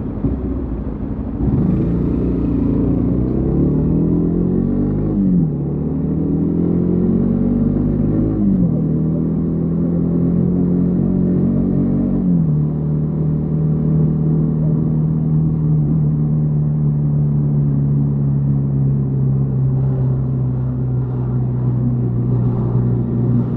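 Yamaha XTZ 150 Crosser S single-cylinder four-stroke motorcycle engine accelerating through the gears, its pitch climbing and dropping at three upshifts, then running at a steady cruise.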